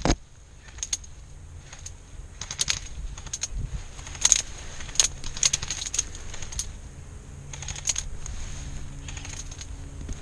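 Sharp clicks and crackles in small irregular clusters, a few every second or two, over a faint steady hum.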